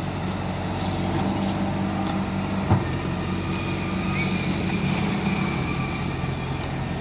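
Diesel engine of a barge-mounted Kato HD450 long-reach excavator running steadily as the barge moves off along the canal, with a single sharp clank a little under three seconds in.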